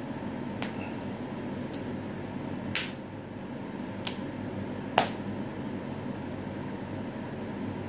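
Hand slapping a bare belly five times, sharp smacks about a second apart, the loudest about five seconds in. An air conditioner runs steadily underneath.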